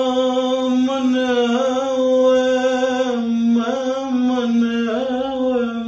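A man singing unaccompanied, holding one long sung note that bends in slow ornamental turns of pitch, in the style of a Punjabi rubai recitation.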